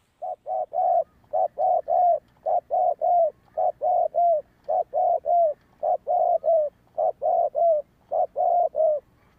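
Spotted dove cooing in a steady run of about eight three-note phrases, each a quick series of low coos, repeated roughly once a second.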